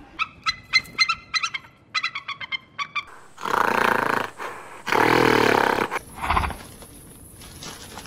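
Animal calls: two quick runs of short, sharp, high notes, then two loud, rough calls of about a second each and a shorter low one.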